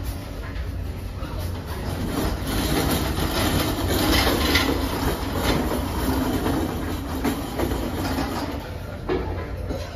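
Cruise ship buffet room noise: a steady low rumble with clinks and clatter, growing louder about two seconds in.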